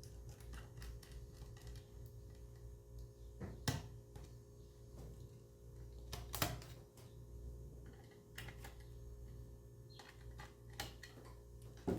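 Scattered light clicks and taps of small laptop parts and tools being handled while an SSD is fitted, with two louder knocks, one a little under four seconds in and one about six and a half seconds in, over a low steady hum.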